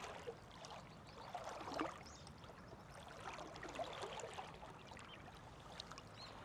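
Faint water trickling and sloshing, with soft, irregular small splashes.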